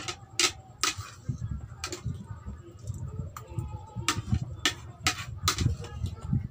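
Spoon and fork clicking and scraping against a plate in irregular sharp clicks, some in quick clusters, with close-up chewing sounds between.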